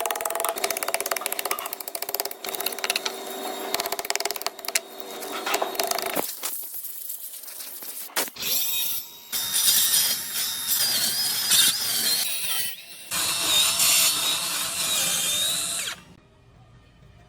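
Power saw running and cutting a curved groove into wood in several passes, its pitch wavering as the blade bites in the later passes; it stops about a second before the end.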